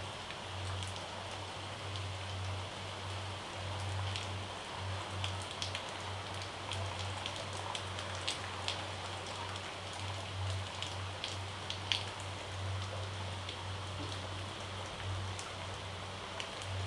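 Chopped coriander leaves being sprinkled by hand over cheese-topped bread slices: scattered faint light ticks over a steady hiss and a low hum.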